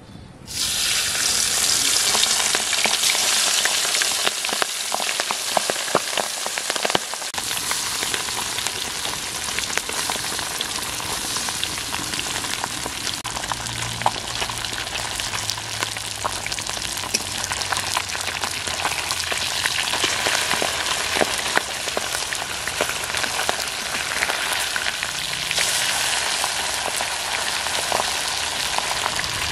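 Pabda fish sizzling and crackling in hot mustard oil in an iron karahi. The frying starts suddenly about half a second in, as the fish go into the oil, and then runs on as a dense, steady crackle.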